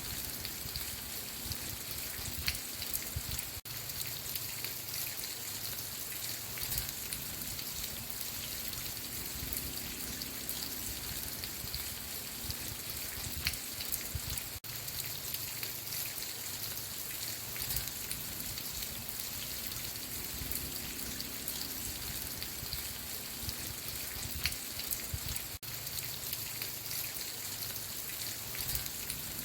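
Steady rain falling, with many individual drops striking close by, and three brief dips in level about eleven seconds apart.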